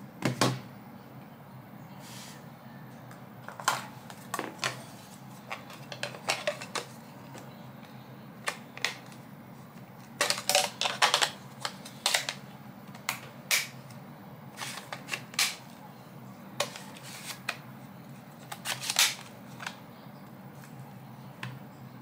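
Sharp plastic clicks and taps from handling a Carrier air-conditioner remote control while batteries are seated in its compartment and the battery cover is fitted back on. The clicks come scattered, with a quick run of them about halfway through and another a few seconds before the end.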